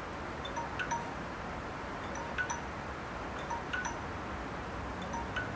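Faint, short electronic chime tones from a phone's interval-timer app, a few notes together about every second and a half.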